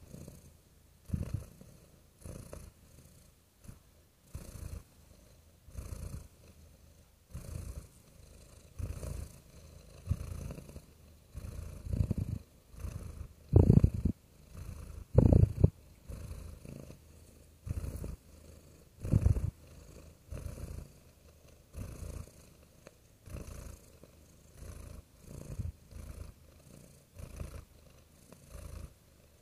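Domestic cat purring close to the microphone, swelling and fading in a steady rhythm about once every second and a quarter with each breath. Two swells about halfway through are louder.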